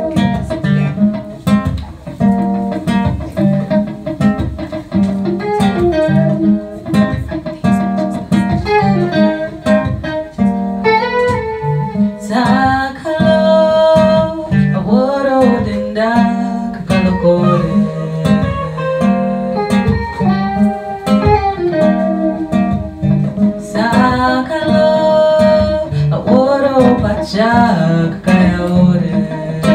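Live folk song on an acoustic guitar and an electric guitar played together, with a woman singing in two stretches, starting about twelve seconds in and again near the end.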